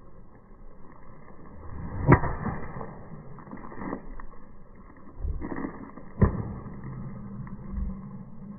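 Golf driver striking a ball: a sharp click about two seconds in, and a second, similar click about four seconds later.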